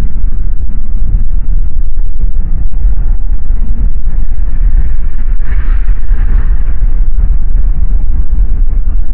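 Bajaj Pulsar NS200 single-cylinder motorcycle riding at speed, a dull low rumble mixed with wind buffeting the microphone, with no treble in the sound.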